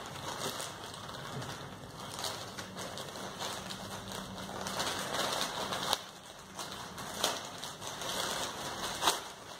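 Clear plastic polybag crinkling and rustling as hands handle and open it, with scattered sharp crackles.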